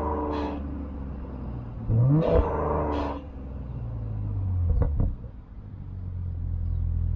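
BMW X6 xDrive40i's turbocharged inline-six running through a TNEER cat-back exhaust, mostly at a steady idle. It revs up briefly about two seconds in and again just before five seconds, dropping back quickly each time.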